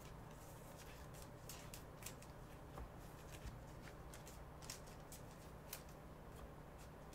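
Trading cards handled by a gloved hand: faint, scattered clicks and rustles of card stock as cards are picked up and slid off the tabletop.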